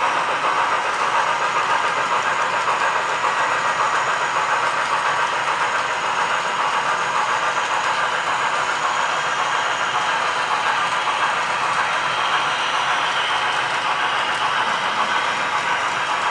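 Model freight trains rolling past on a model railroad layout: a steady rolling rattle of the cars' wheels on the track.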